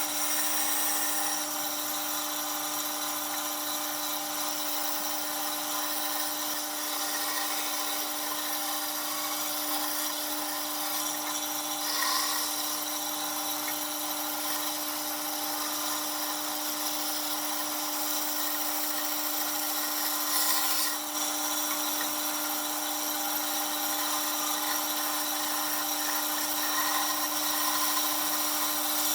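Electric power tool running steadily at one speed, a constant whine over a dense hiss, with brief louder moments about twelve and twenty seconds in.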